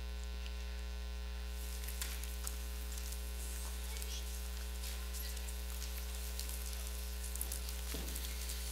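Steady electrical mains hum in the sound system, the loudest thing throughout, with faint scattered clicks and rustles above it from about a second and a half in.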